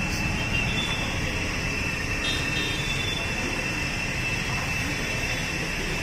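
Construction-site ambience: a steady low rumble and hiss, with a constant high-pitched whine.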